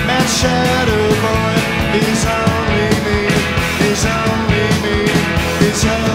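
Live rock band recording heard from a vinyl record: a dense, loud rock song with several cymbal crashes over held, sliding pitched lines.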